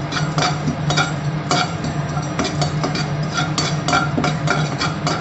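White sesame seeds being dry-roasted in a kadai and stirred with a metal slotted spoon: scraping and tapping of the spoon on the pan mixed with irregular crackling clicks of the seeds popping in the heat. A steady low hum runs underneath.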